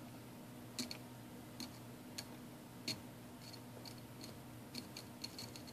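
Light, irregular clicks and ticks of a small screwdriver working tiny screws into a plastic clock housing, about a dozen in all, over a faint steady hum.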